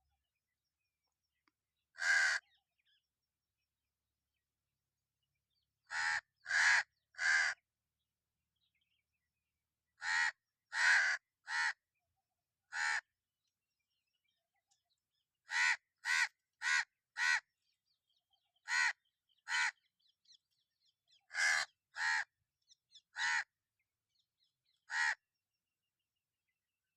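Crow cawing: about seventeen short, harsh caws in bursts of one to four, with pauses of a few seconds between the bursts.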